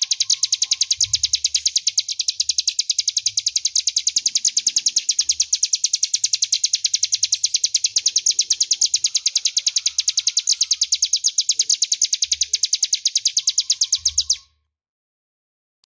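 Ciblek gunung (a prinia) singing one long, fast, even run of sharp high chips, about ten a second, that stops suddenly near the end.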